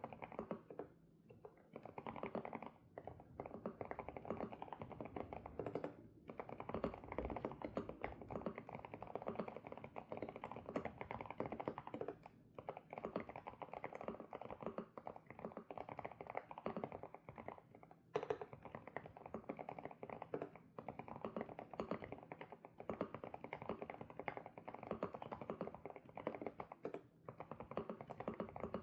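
SPM PL108W mechanical keyboard with Sunset switches being typed on steadily: a fast, continuous stream of keystrokes broken by short pauses every few seconds.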